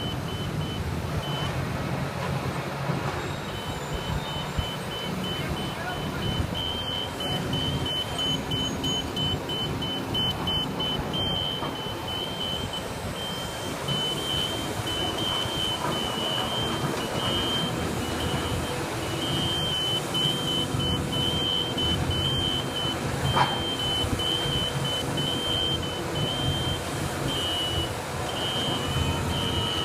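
Heavy construction machinery engine running steadily, with a high electronic beeping alarm sounding on and off over it. One sharp clank about three-quarters of the way through.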